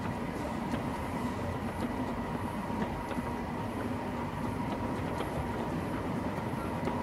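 O scale model goods wagons rolling along the track, with light, irregular clicks of the wheels over the rail joints over a steady hum.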